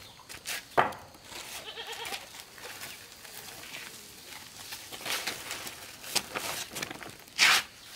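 Farm animals calling, with scattered sharp knocks and rustling; the loudest knocks come about a second in and near the end.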